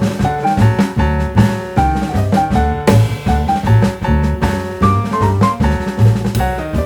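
Background music: an upbeat jazzy tune with drums, bass and piano on a steady beat.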